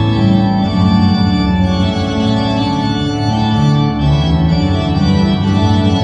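St Paul's Cathedral pipe organ playing full, loud sustained chords over a deep bass, the chords changing every second or so.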